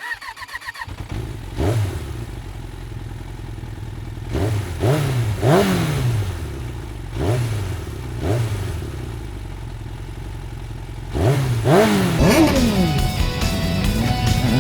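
Kawasaki ZX-9R inline-four engine catching about a second in, then idling with about nine short throttle blips, the pitch rising and falling with each. Music comes in near the end.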